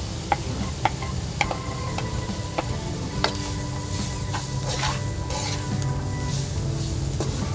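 Food being stir-fried in a pan: a spatula clicks against the pan several times, then from about three seconds in the oil sizzles in bursts as the food is stirred.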